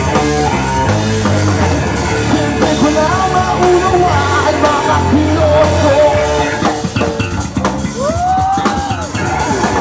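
Rock band playing live: electric guitars, bass and drum kit, with pitched lines bending up and down over the beat.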